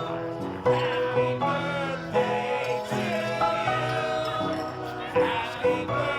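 Music with singing: held sung notes over a steady instrumental backing.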